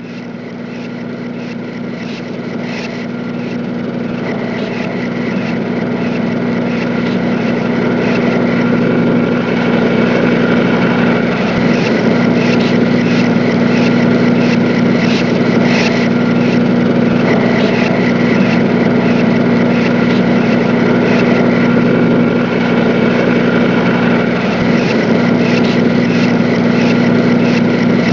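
Motor-driven machinery running with a steady, even drone and light clicking on top, fading in over the first several seconds.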